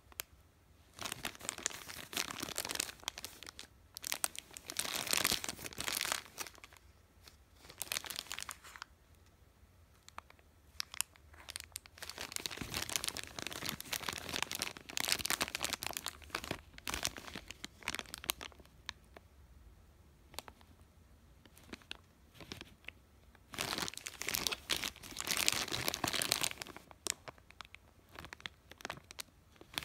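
Thin clear plastic bags crinkling as they are handled and turned over in the hands, in several bursts of a few seconds each with short pauses between.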